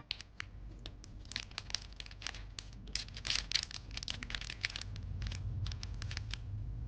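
Plastic packaging being crinkled and torn open by hand: a quick run of crackles that thickens in the middle and stops shortly before the end.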